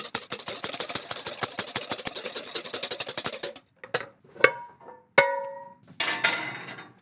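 Egg white being beaten by hand in a bowl: rapid, even clicking of the whisk for about three and a half seconds. It stops, and a few separate knocks follow, two of them ringing briefly, like the whisk knocked against the bowl.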